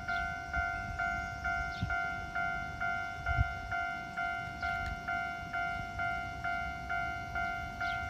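Japanese railroad crossing's electronic warning bell ringing its repeating two-tone "kan-kan" at a little over two strikes a second, signalling that the crossing is closed. A low rumble runs underneath, with one sharp low thump about three and a half seconds in.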